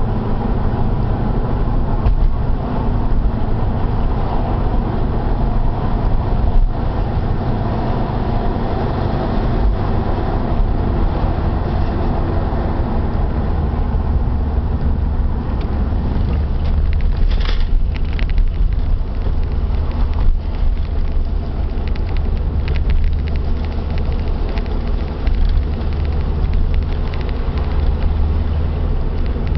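Subaru Impreza GC8 driving with steady road and tyre rumble, under which a worn wheel hub bearing drones faintly. A brief hiss comes about halfway through.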